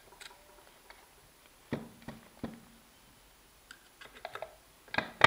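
Scattered light clicks and knocks as the stand mixer's gear housing and shaft are handled and turned by hand to get the gears meshing, with a sharper knock at the very end.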